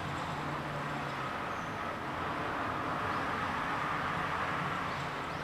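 Steady rushing outdoor background noise with no distinct events, with a few faint, short high-pitched sounds.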